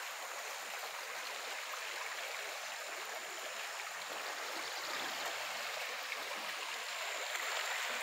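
Muddy floodwater of a swollen stream flowing steadily, an even water noise with no distinct splashes.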